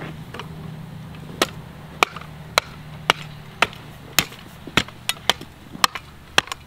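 Folding steel shovel blade chopping repeatedly into hard, rocky dirt to level it: sharp strikes about twice a second, beginning about a second and a half in.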